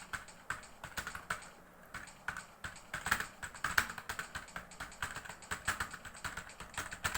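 Fast touch-typing on a computer keyboard: a quick, uneven stream of key clicks at typing-test speed, around 55 words per minute, with a brief pause a little under two seconds in.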